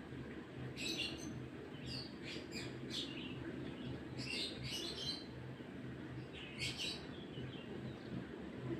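Small birds chirping in the background in several short bursts of quick high chirps, over a low steady hum.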